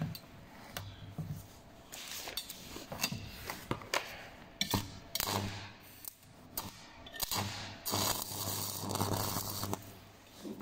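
Stick welding (MMA) electrode being scratched and tapped against stainless steel tube to strike an arc, with short metal scrapes and clinks. About three-quarters of the way in a denser crackling hiss runs for a couple of seconds as the arc catches for a tack weld.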